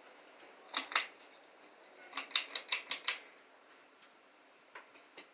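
Sharp clicks: two about a second in, then a quick run of about seven within a second, and a couple of faint ticks near the end.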